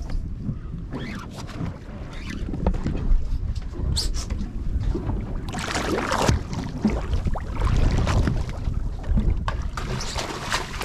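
Wind buffeting the microphone over water slapping against a boat's hull, with louder sloshing about halfway through.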